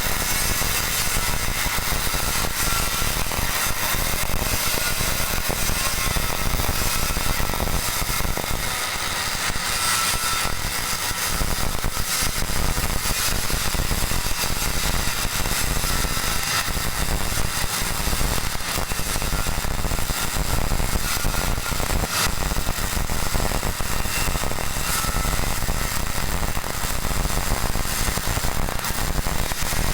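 CO2-shielded MIG welding arc, crackling and buzzing steadily and without a break.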